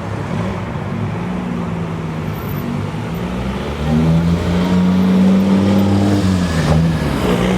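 Rally car engine under hard acceleration, its pitch climbing steadily and getting much louder about four seconds in. Near the end the pitch drops sharply, then climbs again.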